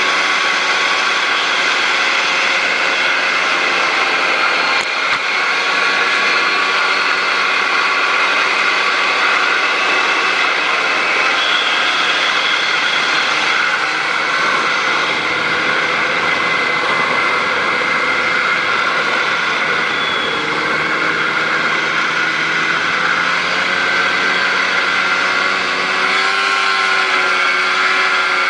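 Snowmobile engine running steadily as the machine travels along the trail. Its pitch drifts up and down a little in the second half with changes of throttle.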